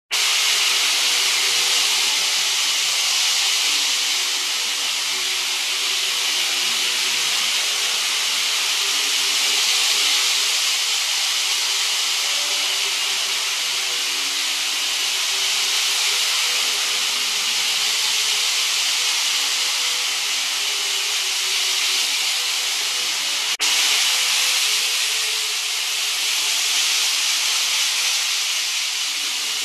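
Model trains running on a layout's elevated slab track: a steady, hiss-like whirr of motors and wheels on the rails, with a faint wavering hum underneath. One brief click breaks it about three quarters of the way through.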